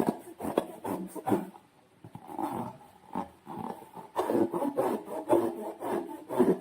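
Slime being squeezed and worked with rubber balloons: a busy run of short, irregular squelches and rubbery rubbing squeaks.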